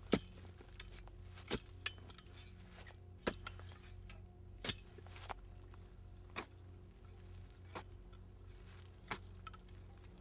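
A digging tool chopping into earth, about seven sharp strikes spaced roughly a second and a half apart, over a steady low hum.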